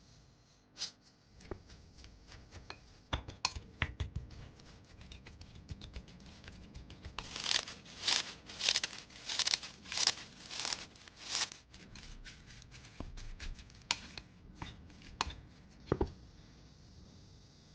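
Food-preparation handling sounds: scattered clicks and taps, then a run of about seven loud rasping strokes at an even pace in the middle, then a few more clicks and knocks.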